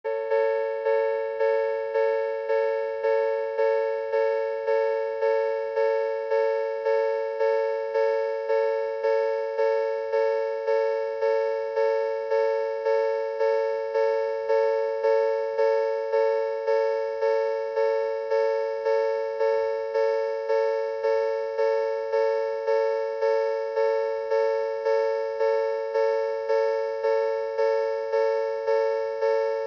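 Synthesized recreation, made in GarageBand, of the old Odakyu level-crossing warning bell: a ringing bell tone struck evenly about one and a half times a second, unchanging throughout.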